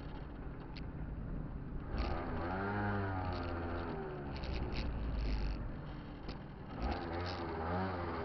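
Kymco Cobra (Top Boy) scooter's two-stroke engine running at low speed, its revs rising and falling twice, about two seconds in and again near the end.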